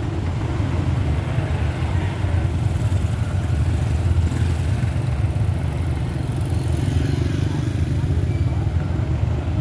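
Motorbike running while being ridden, with engine and road noise under a constant heavy low rumble.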